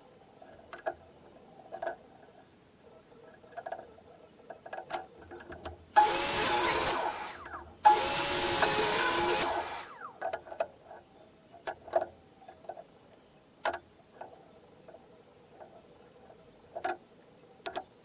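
An electric power tool runs in two short bursts, about a second and a half and two seconds long, the second tapering off as it winds down. Scattered knocks and taps of wood and hand tools being handled on a workbench come before and after.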